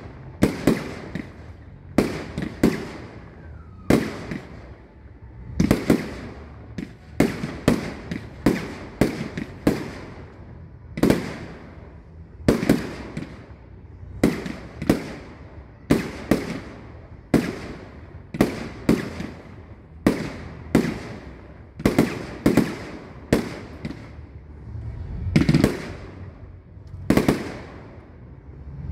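Fireworks display: a steady run of aerial shell bursts, sharp bangs about one or more a second, each trailing off in a rolling echo.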